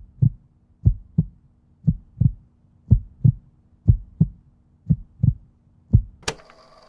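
Heartbeat sound effect: deep lub-dub double thumps about once a second, seven beats in all. Near the end a sudden hit cuts it off and soft ambient music begins.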